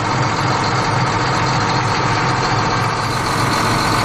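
Tractor engine idling steadily, a dubbed engine sound effect rather than a sound from the toy itself.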